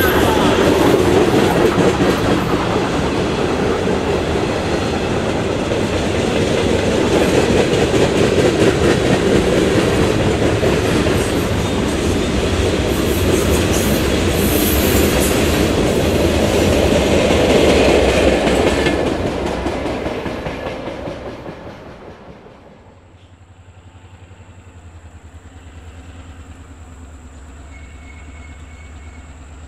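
A freight train of hopper cars rolling past at close range, steel wheels clattering over the rail joints with a continuous rumble and rattle. The sound fades out about twenty seconds in, leaving only a quieter low hum.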